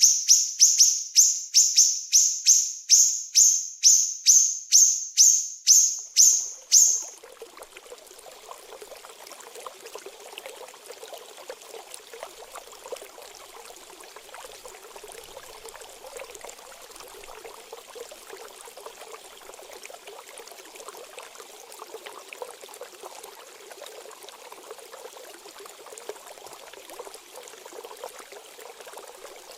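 A small songbird repeats a sharp, high note rapidly, about three times a second, and stops about seven seconds in. Steady trickling running water follows for the rest.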